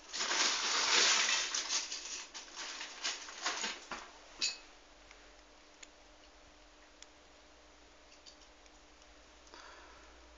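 Small metal clicks and scraping from handling a padlock and lock-picking tools, busiest in the first four seconds. A single sharp metallic click with a brief ring comes about four and a half seconds in, followed by a few faint ticks.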